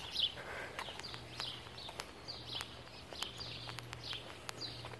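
Faint small-bird chirps, short falling notes repeated every half second or so, over a low steady hum and a few light clicks.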